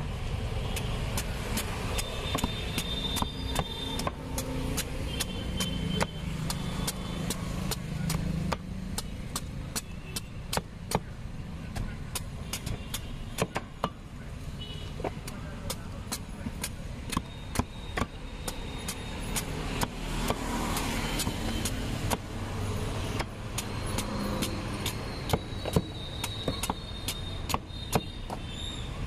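A heavy knife chopping and shaving the rind of a raw jackfruit in many quick, irregular sharp strokes, over a steady rumble of road traffic.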